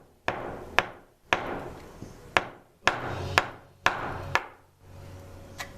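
Repeated sharp knocks, about eight or nine strikes, mostly about half a second apart in short runs, as the DanVice vise's C-clamp is forced off the vise stem with a lot of force.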